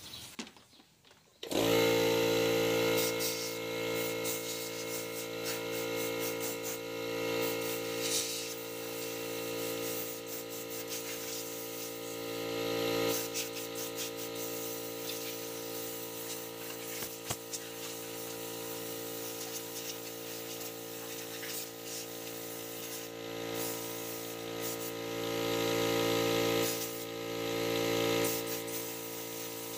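Air compressor switching on about a second and a half in and running steadily, with intermittent hissing blasts from an air blow gun blowing out the engine bay.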